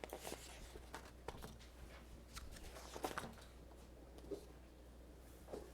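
Quiet room: a low steady hum with scattered faint rustles and small clicks, a stronger cluster about three seconds in.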